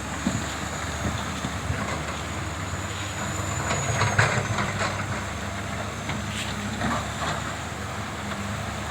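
Hydraulic excavator's diesel engine running steadily under load, with rattles and knocks that peak about four seconds in.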